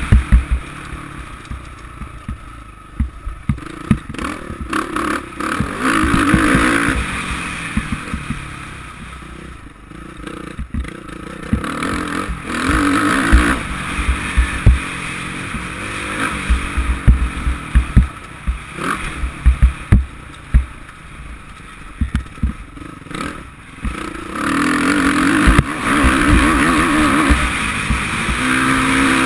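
Suzuki RM-Z450's four-stroke single-cylinder engine as the motocross bike is ridden over a rough dirt track, heard from a helmet camera: the throttle opens and closes again and again, with louder pulls a few times and a long one near the end. Frequent knocks and clatter come from the bumps.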